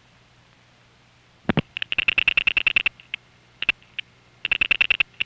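Rotary dial pulses heard on a telephone line: two even trains of sharp clicks at about ten a second, with a few single clicks between them, over a faint low hum.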